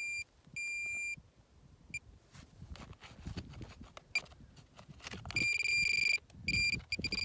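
Metal detector beeping a steady high tone over a buried metal target. There are two half-second beeps at the start, short blips after, then louder, longer, broken beeping from about five seconds in. Faint scraping of soil runs between the beeps.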